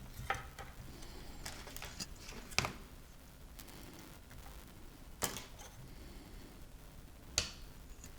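Faint, scattered light clicks and taps of small tools against a circuit board while a component is desoldered, about five over eight seconds, the sharpest a little past two seconds in, around five seconds and near the end.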